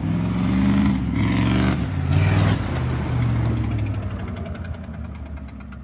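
Ford mud truck's 7.3-litre diesel engine revving through tall straight exhaust stacks as the truck drives past, rising and falling in pitch for the first two and a half seconds, then settling lower and fading as it moves away.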